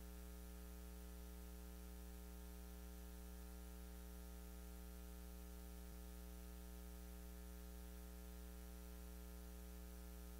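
Near silence apart from a steady electrical mains hum with a stack of overtones and a faint hiss.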